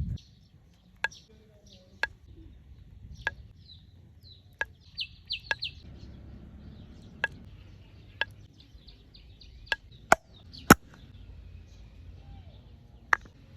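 Repeated sharp knocks or chops, irregular and roughly one a second, the two loudest a little past ten seconds in, with small birds chirping in the background.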